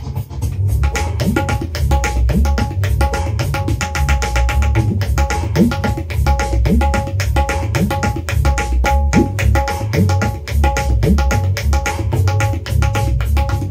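Tabla played with both hands in a fast, steady rhythm: quick ringing strokes on the treble drum mixed with deep bass strokes whose pitch slides upward.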